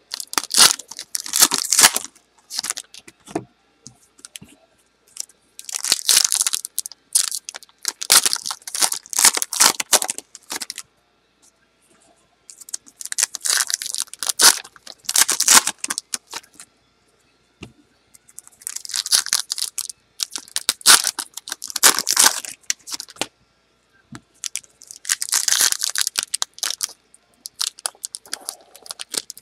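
Foil trading-card pack wrappers being torn open and crinkled, in repeated bursts of a second or two with short pauses between.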